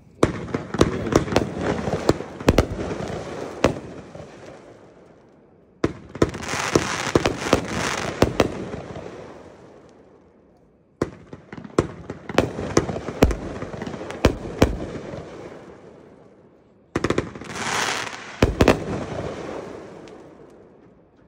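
Consumer aerial fireworks going off in four rounds, each opening with several sharp bangs and trailing into a dense crackling spray that fades over about four seconds.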